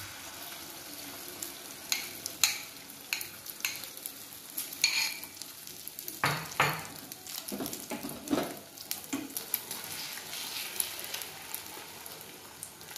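Egg and potato omelette mixture being poured into an oiled frying pan and sizzling in the hot oil, with a utensil repeatedly scraping and knocking against the bowl and pan.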